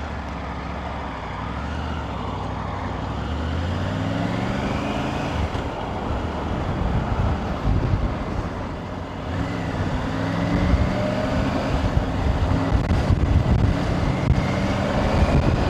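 Triumph Tiger 900 GT Pro motorcycle's three-cylinder engine running: it idles steadily at first, then its pitch rises twice as it revs and pulls away, with some noise in between.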